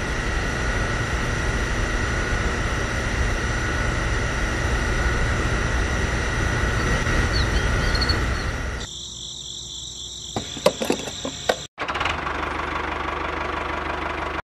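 A small DC electric motor running the miniature water pump, a steady buzzing hum. About nine seconds in the sound drops and changes, with a few sharp clicks and a brief cut-out before the motor noise resumes.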